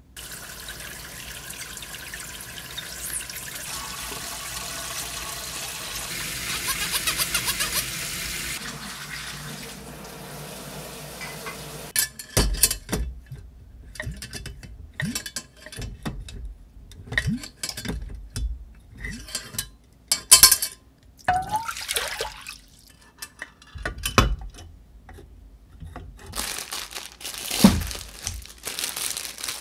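Dishwashing at a kitchen sink: steady running tap water and sponge scrubbing. From about twelve seconds in, a string of sharp clinks and knocks as glass jars are set into a pot, and running water again near the end.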